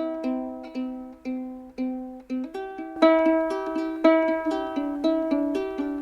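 Background music: a plucked string melody of short, quickly fading notes, growing fuller and louder about halfway through.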